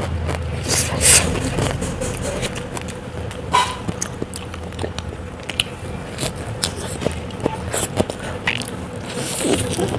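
Close-miked eating: biting and chewing a meal of grilled chicken, rice and raw vegetables, with scattered sharp crunchy snaps, over a steady low hum.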